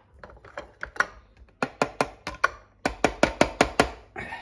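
An irregular run of sharp clicks and taps, hard plastic knocking on plastic, from a food processor's bowl and lid being handled. The clicks come several a second and crowd together in the second half. The motor is not running.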